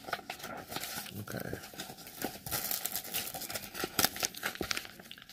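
Packaging being handled and unpacked: irregular crinkling and rustling with many small clicks.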